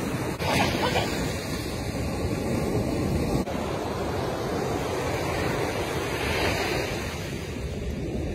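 Ocean surf washing on the shore, steady, with wind buffeting the microphone.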